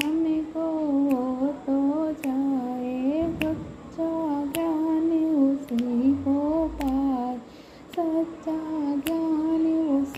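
A woman humming the melody of a Hindi devotional bhajan without words, her voice moving up and down through the tune. A sharp click keeps time about once a second.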